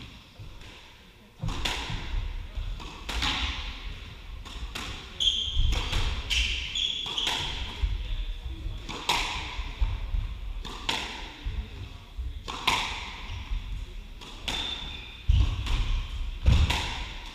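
Squash ball being hit back and forth, sharp cracks of racket and ball striking the walls at irregular intervals, starting about a second and a half in. Short high squeaks of court shoes on the wooden floor come in between the hits.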